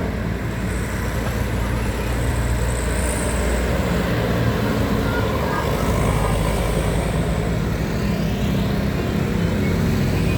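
Road traffic: a large vehicle's engine running steadily with a low hum, over continuous tyre and road noise.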